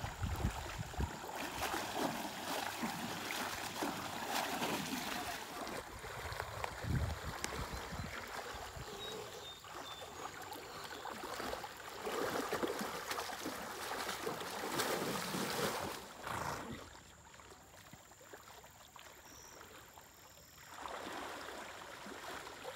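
Water sloshing and swishing in uneven surges as a horse wades chest-deep through a pond. It falls away to a faint hiss for a few seconds about three quarters of the way through, then the sloshing picks up again.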